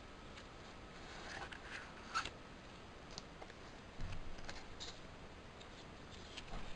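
Hands handling a clear plastic CD jewel case and lifting out its paper cover insert: faint scattered clicks and paper rustles. The sharpest click comes about two seconds in, and a soft knock comes about four seconds in.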